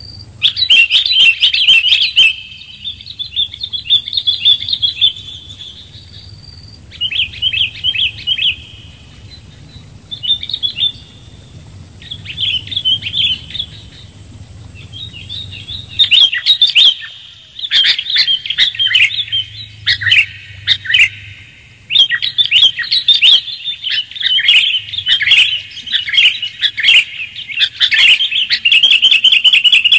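Sooty-headed bulbuls (kutilang) calling in bouts of quick, bubbly chirps that rise and fall, with short pauses between phrases. The calls are a bird-trapping lure recording. They grow busier and almost continuous in the second half.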